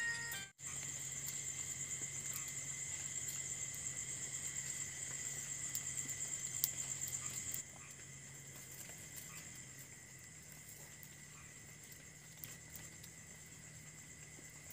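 Crickets trilling steadily, high and pulsing, over a low hum. Everything drops in level about seven and a half seconds in.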